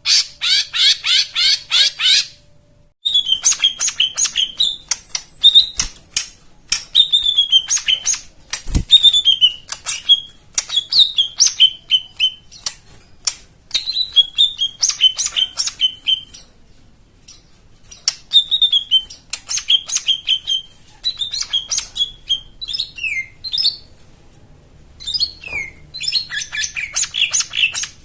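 Cucak ijo mini (lesser green leafbird) singing a varied song of rapid chattering bursts and clear, falling slurred notes, phrase after phrase with short pauses between them.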